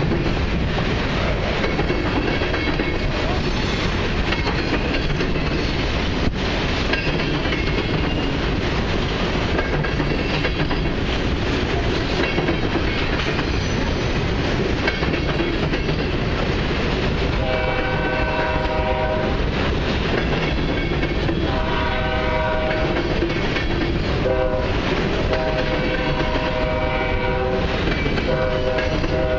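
Loaded freight train of covered hopper cars rolling past with a steady rumble and the clickety-clack of wheels over rail joints. From about halfway through, a train horn blows several long blasts over it.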